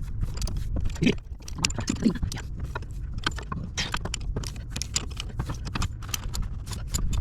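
Wrench working a front shock-mount bolt loose under a motorhome's Ford F53 chassis: a run of irregular metallic clicks and knocks, several a second, over a steady low rumble.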